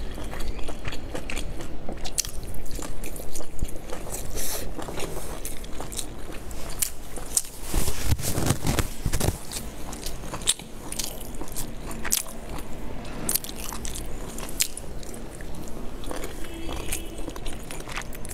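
Close-miked chewing and biting of dumplings: a run of wet mouth clicks and smacks, with a louder, lower-pitched stretch of chewing about eight seconds in.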